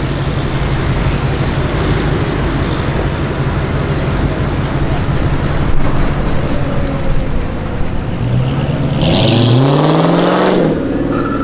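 Car engine running at a steady low idle, then a car accelerating hard with its engine note rising sharply for about two seconds, the loudest part, before it drops away near the end.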